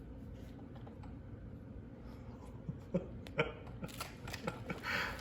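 Quiet handling noises of a baby playing with a toy letter Z: soft rustling and small knocks, with a couple of short baby grunts about three seconds in.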